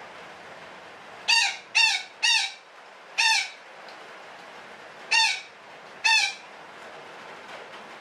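A betet parakeet (Psittacula) giving six short, harsh squawks: a quick run of three, one more, then a pair. A steady hiss runs underneath.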